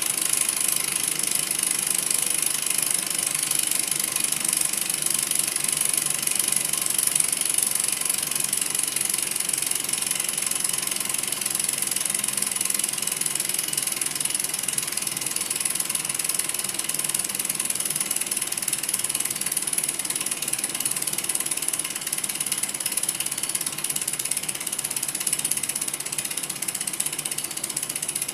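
Small model Stirling hot-air engine running steadily, its crank linkage and piston making a fast, even mechanical rattle.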